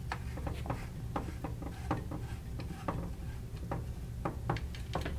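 Irregular light clicks and ticks of a T-handle 3 mm Allen wrench turning a small screw back into the rifle chassis side panels, several in a row at uneven spacing.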